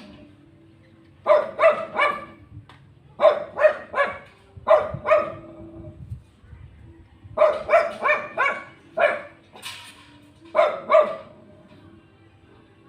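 A dog barking in quick runs of three or four barks, with short pauses between the runs.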